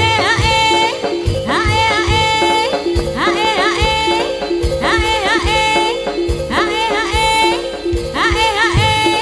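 Jaranan gamelan ensemble playing: regular low drum strokes and steady mid-pitch metal tones under a high, wavering melodic phrase that repeats about every second and a half.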